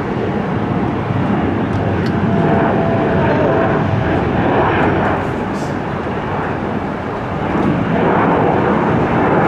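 Jet noise from a United Express Embraer E-Jet regional jet's two wing-mounted turbofans at takeoff thrust as it rolls down the runway, lifts off and climbs away. It is a steady, dense noise that grows a little louder near the end.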